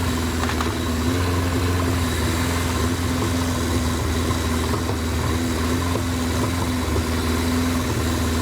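1983 Suzuki GS1100 GK's air-cooled inline-four engine idling steadily.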